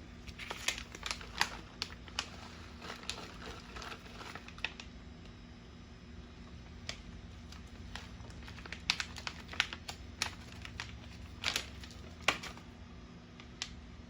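A plastic bag of shredded three-cheese blend crinkling and crackling in irregular handfuls as the last of the cheese is shaken out and spread, with scattered light clicks. The crackles come in clusters, the loudest around nine to ten seconds and again near twelve seconds in.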